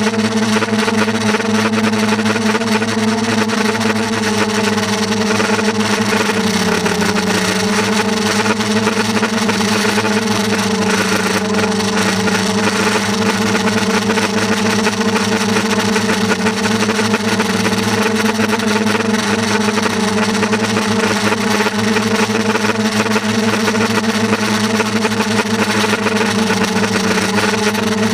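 Steady motor hum over a continuous hiss. The hum's pitch dips slightly about seven seconds in and again a little past halfway.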